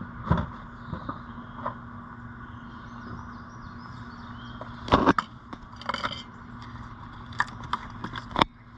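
Handling noises from working with parts and packaging: scattered clicks, knocks and rustles, the loudest about five seconds in, over a steady low background hum.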